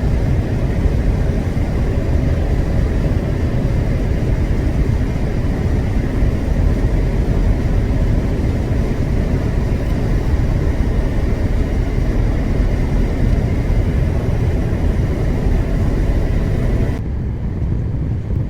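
Steady road and engine noise heard from inside a moving vehicle at highway speed, a constant low rumble. Near the end the higher hiss suddenly drops away.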